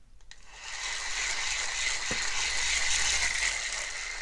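Shimano Stradic 5000 FK spinning reel cranked fast by its handle, its rotor and gears running loud and rough with a steady high tone in the noise. The sound starts about half a second in and eases off near the end. The reel has just been freed after seizing, and the noise is the sign that something is wrong inside: usually worn bearings, sometimes a broken gear.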